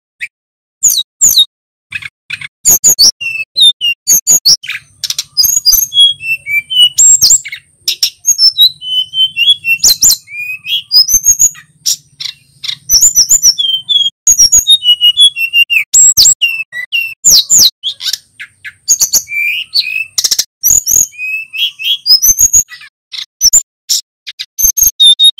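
Male sikatan gunung, a blue flycatcher, singing a fast, nearly unbroken string of sharp clicking chirps and short warbled notes, with brief gaps between the bursts.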